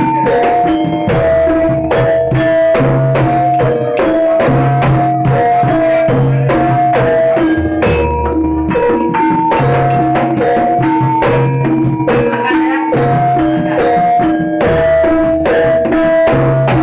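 Jaranan gamelan music: a percussion ensemble of hand drums and tuned gongs and metallophones playing a fast, steady rhythm, with ringing pitched notes over it and deep gong strokes recurring every second or two.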